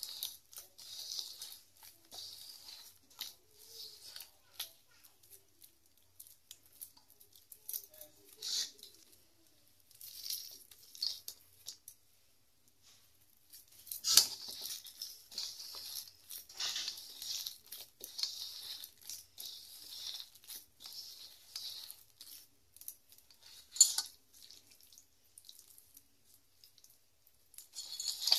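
Hands kneading and squeezing a soft dough in a stainless steel bowl: irregular wet squelching and scraping, with a couple of sharper knocks about halfway and near the end.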